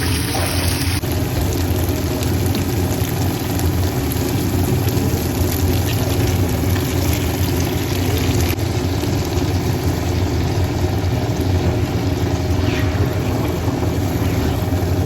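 Steady low droning hum of a running motor, with a light hiss above it, unchanging throughout.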